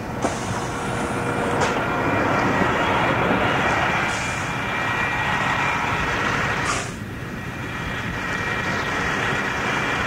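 TMC RTS transit bus with a Detroit Diesel Series 50 diesel engine and Allison V731 automatic transmission, running with a steady rumble and a faint whine. A short hiss comes just before seven seconds in, and the sound drops a little after it.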